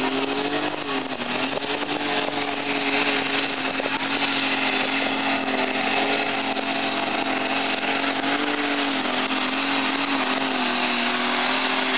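Modified pulling tractor's engine running flat out under load as it drags the weight sled. It gives a steady, high-revving note that climbs at the start, holds, and sags briefly about three-quarters of the way through before coming back up.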